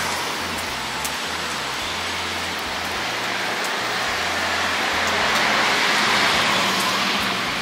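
Outdoor street ambience: a steady broad hiss that swells about six seconds in and eases near the end.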